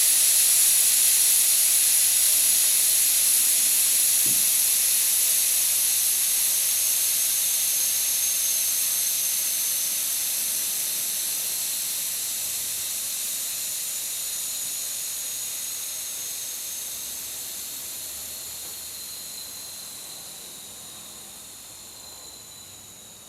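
Air hissing out of a car tyre as it is let down, a high hiss with a faint whistle that slowly drops in pitch. The hiss fades steadily as the tyre's pressure falls.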